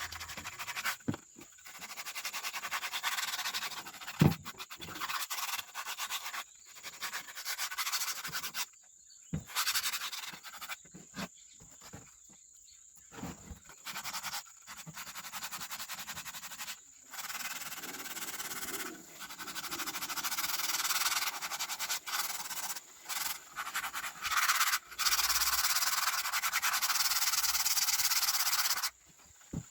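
Abrasive rubbing on a hard surface, as in hand sanding or scrubbing: rasping strokes in short stretches that stop and start abruptly, with one sharp knock about four seconds in.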